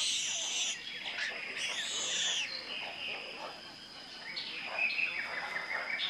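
Tropical rainforest ambience: several birds calling and chirping, with loud arching calls at the start, about two seconds in and near five seconds, over a steady high-pitched whine.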